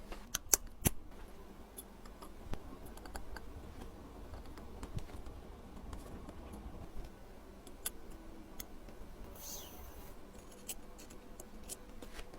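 Small metal tools clicking and tapping against watch parts during hand work, with a few sharp clicks in the first second and a brief hiss about nine and a half seconds in.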